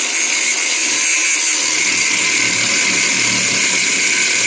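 Bauer cutoff tool running steadily, its abrasive wheel grinding through a steel exhaust clamp with a high whine. The owner finds the tool underpowered: it doesn't seem to have the balls.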